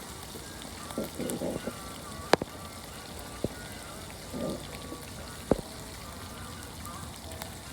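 A campfire crackling with a steady hiss and a few sharp pops, the two loudest about three seconds apart. Faint voices are heard briefly twice.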